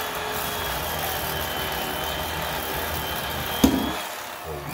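Electric fillet knife running, its blades sawing through a crappie with a steady buzz and a thin high whine. A sharp click comes about three and a half seconds in, after which the whine stops.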